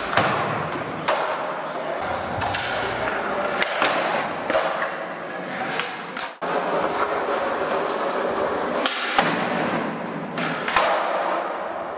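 Skateboard wheels rolling on a smooth concrete floor, with several sharp clacks and thumps of tail pops, flip tricks and landings during trick combos, briefly cut off by an edit partway through.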